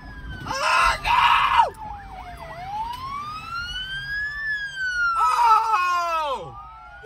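Police sirens wailing, slowly rising and falling in pitch, with more than one siren overlapping. Two louder, harsher blasts stand out, about a second in and again near the end.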